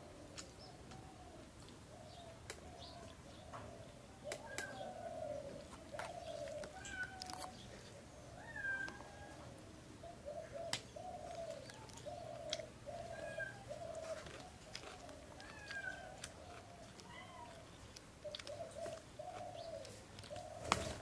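A cat meowing over and over in short calls, with birds chirping faintly and a few light clicks.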